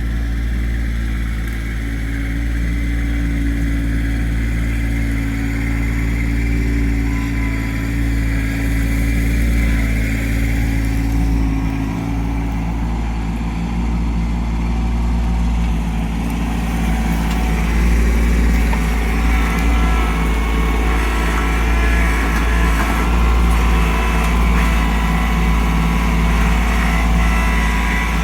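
Kubota LX2610 compact tractor's three-cylinder diesel engine running steadily, a little louder in the second half.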